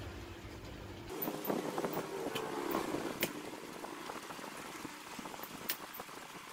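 A low rumble for about a second, then scattered light clicks and knocks over a steady background hiss as ducks on metal skewers are handled and basted on a metal tray.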